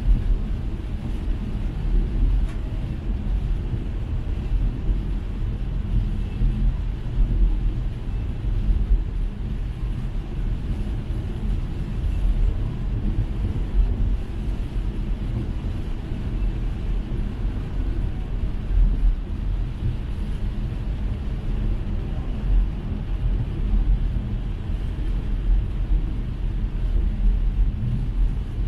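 A car driving through heavy rain: a steady low rumble of the car on the road, with a fainter even hiss above it.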